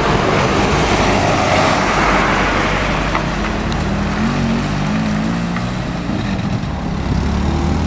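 A road vehicle passes close by with a rush of tyre and engine noise, loudest over the first two seconds and then fading; a low engine hum of a running vehicle carries on through the rest.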